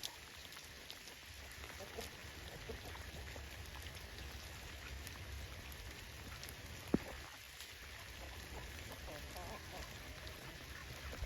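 Steady light rain, with scattered drops ticking and one sharper drip about seven seconds in. Ducks quack faintly now and then.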